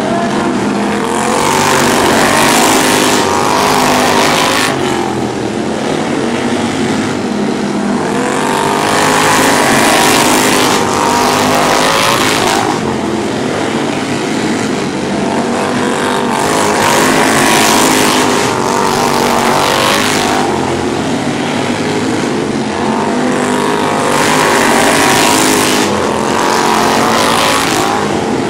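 Several racing lawnmower engines running hard around a dirt oval. Their pitch wavers and the sound swells every few seconds as the mowers come past and then pull away.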